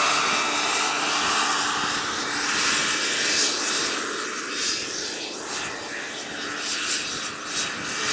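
Small gas turbine engine of a radio-controlled scale CH-53 helicopter running with a steady high whine and rush, together with its rotor noise, as the model flies past. The sound fades somewhat past the middle, then swells again near the end.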